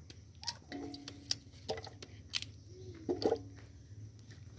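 Knife cutting pumpkin and the chunks dropping one by one into a metal basin of water: a series of sharp plops and knocks, several in about four seconds.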